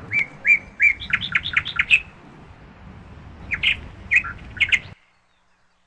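Bird chirping in a park: a quick run of sharp, high chirps, then a few more after a short pause, over a low background rumble. The sound stops abruptly about five seconds in.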